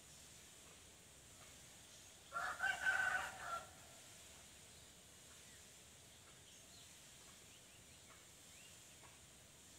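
A rooster crowing once, a single call of a little over a second about two seconds in, over a faint background.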